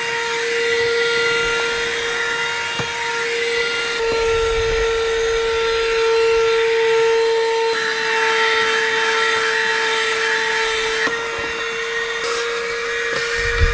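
Handheld cordless car vacuum cleaner running: a steady high motor whine over rushing air, its tone shifting slightly a few times. A low thump comes at the very end.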